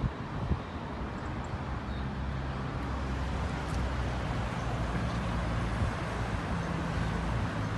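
Road traffic: cars driving past on a busy avenue, a steady mix of low engine hum and tyre noise.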